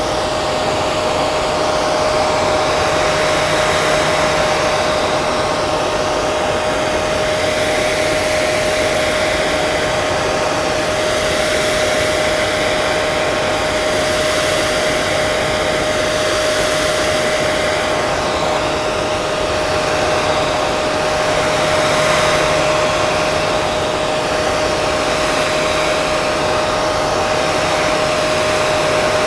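Hair dryer running continuously: a steady rushing of air with a constant motor whine.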